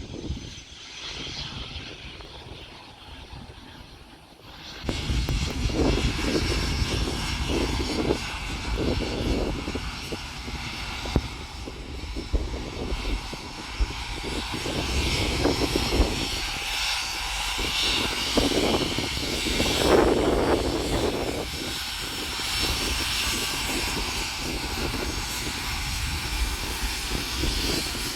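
Twin turbofan engines of a Cessna Citation Mustang business jet during its landing. The jet noise jumps sharply about five seconds in and stays loud, with uneven low rumbling surges.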